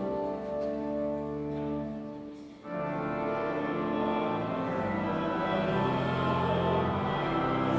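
Slow orchestral music with sustained string chords; it fades down about two and a half seconds in, then a new, fuller passage enters.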